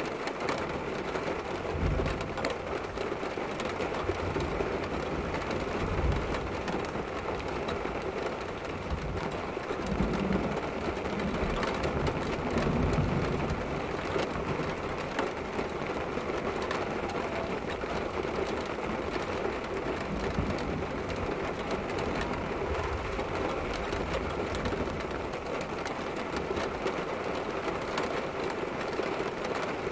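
Rain falling steadily against a window pane, with many small drop ticks over a steady hiss. A few low rumbles rise under it, the longest about ten to thirteen seconds in.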